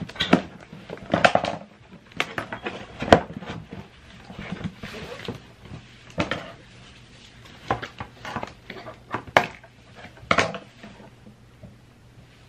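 Scattered short knocks, clicks and rustles of things being handled at a table, about a dozen spread irregularly, with no steady sound beneath them.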